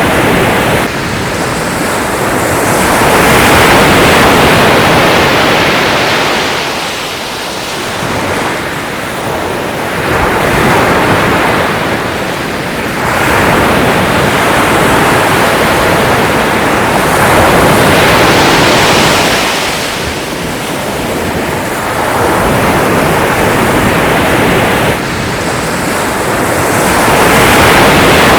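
Sea surf: waves breaking with a steady rush that swells and eases about every six to seven seconds.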